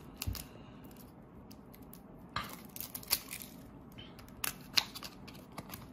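Hands handling and opening a cardboard box of playing cards: scattered short scratches, rustles and light clicks of the paper box.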